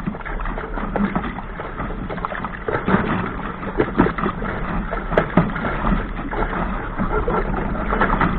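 Water splashing and slapping against the hull of a small sailing dinghy driving through choppy waves, over a steady rush of water and wind. The splashes come irregularly, the heaviest around the middle.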